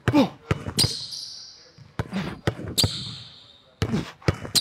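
Basketball dribbled hard on a hardwood court, several quick bounces in short runs, with brief high-pitched sneaker squeaks on the floor as the dribbler stops and plants his feet.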